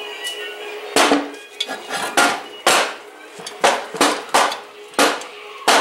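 Cast aluminium trailing arm from a 1968 Triumph TR250 knocked against a perforated steel table to shake decades-old casting sand and dirt out of it. It makes a run of sharp metallic knocks, about eight of them, starting about a second in.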